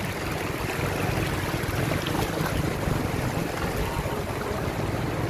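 Shallow floodwater rushing steadily across a dirt road, mixed with wind buffeting the microphone.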